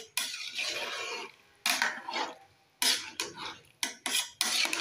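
Metal spoon stirring soaked rice and chicken in stock in a metal pot: a run of short scrapes and clinks against the pot, in bursts with brief pauses.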